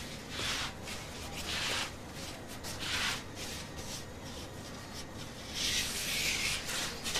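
Hands rolling baguette dough on a floured wooden bench: faint rubbing swishes a second or so apart, with a longer one near the end.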